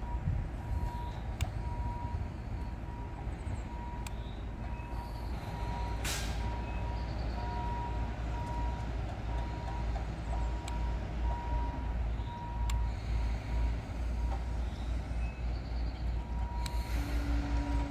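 Truck backup alarm beeping steadily over a low engine rumble, with a sharp click about six seconds in.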